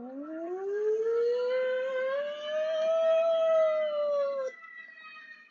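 Emergency warning siren in an alert-tone recording: one wail that rises steeply over about three seconds, eases down a little, then cuts off suddenly about four and a half seconds in. Fainter steady tones follow.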